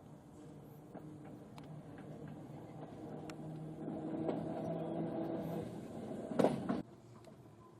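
Heritage electric tram running, with a steady motor hum and scattered clicks from the wheels, growing louder about halfway through. Near the end comes a brief loud rush, and then the sound cuts off suddenly.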